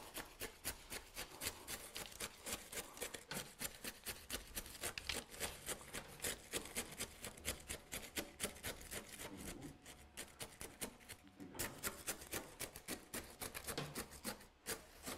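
Bonsai substrate being worked into a pot around a tree's roots: rapid, gritty scraping strokes, several a second, with a brief pause about ten seconds in.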